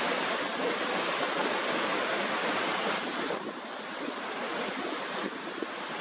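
Niagara Falls' water pouring over the brink, a steady dense rushing noise that turns a little quieter and duller about three seconds in.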